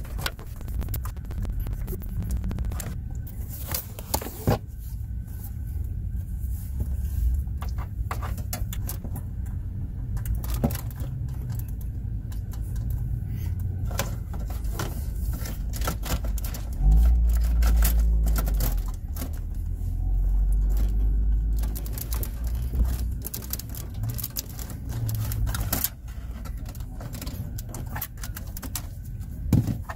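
Hand-handling sounds at a car dashboard: scattered plastic clicks, knocks and rustling of wiring as an aftermarket stereo head unit is pulled out of its slot and pushed back in. A louder low rumble lasting a couple of seconds comes about halfway through.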